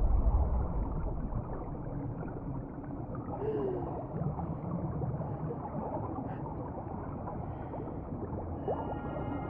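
Underwater film ambience: a low, muffled rumble with gurgling bubbles. A short falling tone comes about three and a half seconds in, and a brief rising glide near the end.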